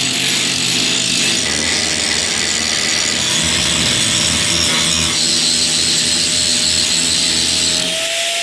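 Electric angle grinder running under load, its disc grinding the edge of a steel plate to clean it up: a steady motor whine over the grinding of disc on metal. The pitch rises slightly near the end, then the sound cuts off suddenly.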